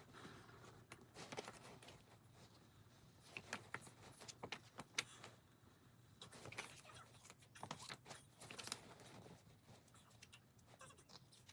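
Faint handling sounds: scattered light clicks and small rustles over quiet room tone, the loudest click about five seconds in.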